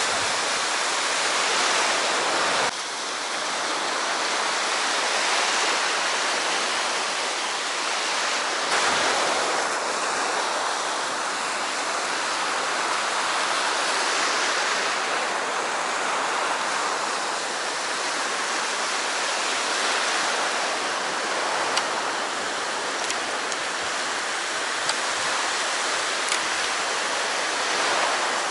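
Sea surf washing steadily on the shore, a continuous rushing noise, with a few faint clicks in the second half.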